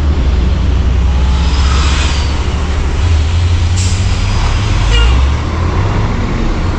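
Diesel tractor-trailer engines running with a steady low rumble as the trucks pull slowly past, with a short sharp hiss about four seconds in.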